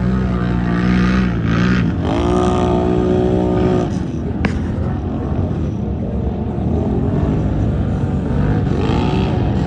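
Off-road vehicle engine running, its pitch rising and falling between about two and four seconds in, with one sharp click near the middle.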